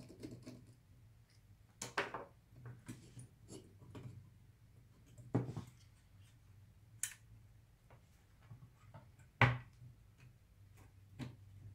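Scattered clicks and knocks of a graphics card and its plastic fan shroud being handled and pressed into place, with a small screwdriver laid down on the desk; the loudest knock comes about nine seconds in. A faint low hum runs underneath.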